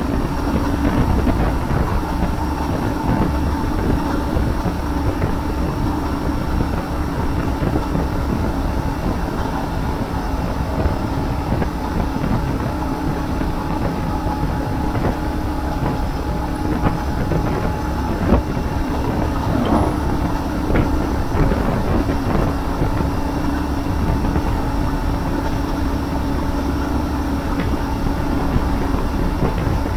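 Steady wind noise rushing over the camera microphone of a Royal Enfield Shotgun 650 under way, over the drone of its 648 cc parallel-twin engine pulling in top gear up a long hill.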